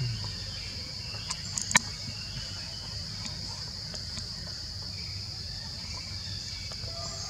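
Steady, high-pitched drone of forest insects. A few sharp clicks come about a second and a half in, the last and loudest just under two seconds in.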